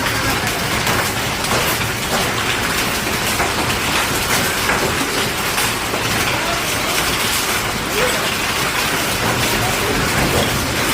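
Hailstones pelting down in a heavy storm: a dense, unbroken clatter of countless small impacts.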